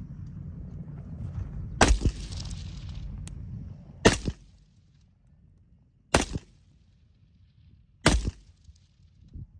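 Four single rifle shots from a North Korean Type 63 SKS in 7.62×39 mm, spaced about two seconds apart, each a sharp crack with a short echo.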